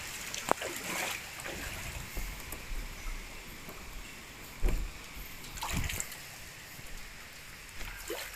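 Water sloshing and splashing underfoot while walking through shallow floodwater on a concrete corridor. A sharp click comes about half a second in, and two dull knocks come about halfway through as a hand pushes against a door.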